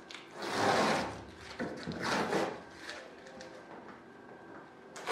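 Green masking tape being peeled off aluminium wing skin and a wooden router template, two long tearing pulls about half a second and two seconds in, followed by quieter handling of the template.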